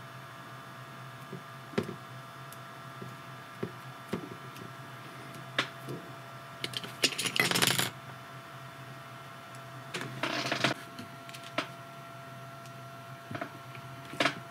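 Hands working small drone parts and double-sided tape on a workbench: scattered light clicks and taps, with two short scratchy noises about seven and ten seconds in, over a faint steady hum.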